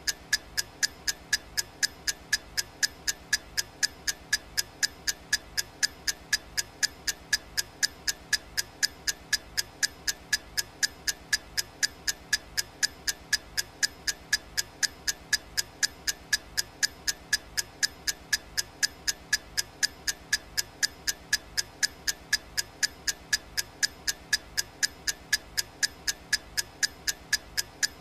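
Clock ticking sound, steady and even at about three ticks a second.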